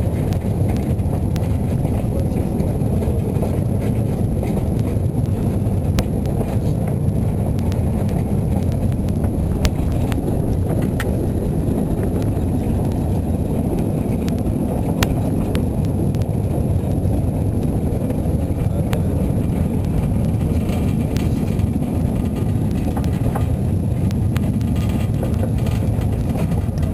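Steady rumble of a narrow-gauge train's open wagon rolling along the track, heard from on board, with a few sharp clicks scattered through.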